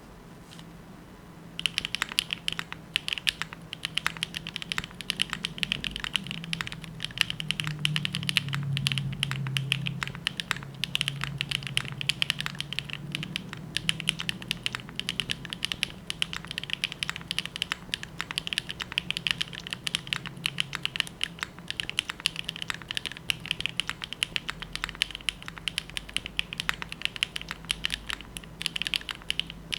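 Fast typing on a TKD Cycle 8 mechanical keyboard with HMX Catmint switches, an aluminium plate and case foam, under DCX Hyperfuse double-shot ABS keycaps. A dense, steady stream of key clacks starts about a second and a half in.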